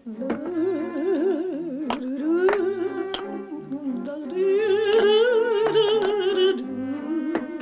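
Background score music: a wavering, heavily vibrato melody, with a few sharp percussive hits.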